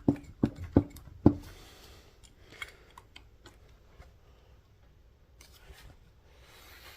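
A fuel injector's plastic wiring connector and its locking clip clicking four times in quick succession within the first second and a half as they are worked with a small screwdriver, followed by faint handling clicks.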